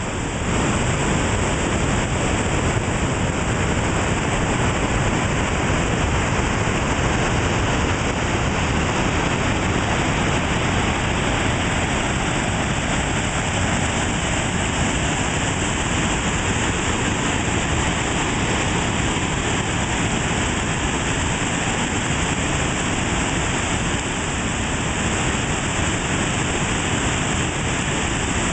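Waterfall pouring over a rock ledge: a steady, loud rushing of falling water that does not change.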